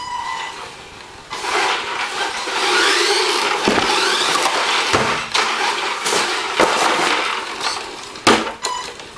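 Electric RC monster truck on a Tamiya TL-01 chassis with a 540 stock brushed motor, driving across a tiled floor: the motor and drivetrain whine rises and falls as it speeds up and slows, over the rumble of its big tyres. Four sharp knocks come at intervals, the last and loudest near the end.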